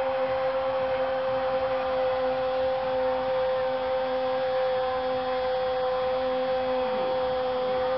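A Spanish-language football commentator's drawn-out "gooool" goal call, held on one steady note, with stadium crowd noise behind.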